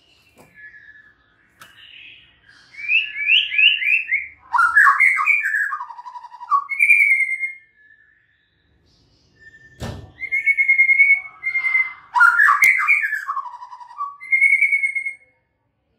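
White-rumped shama singing: two long phrases of rapid, sweeping whistled notes with fast trills, separated by a short pause. A sharp thump sounds just as the second phrase begins.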